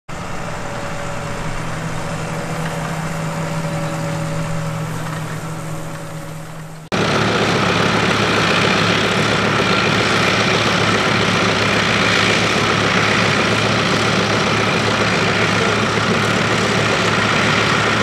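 Fordson Major tractor engine running steadily under load while it pulls a plough, a loud even sound with a constant low note. It starts abruptly about seven seconds in; before that a steady hum with a few held tones plays, fades a little and cuts off.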